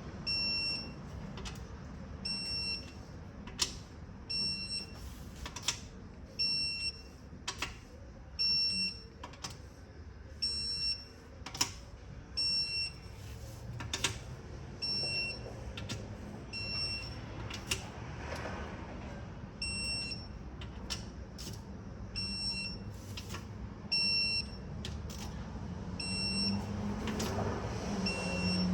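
Digital torque wrench beeping in short high beeps about once a second, with sharp clicks in between, as bolts are pulled up to a set torque of about 9 foot-pounds.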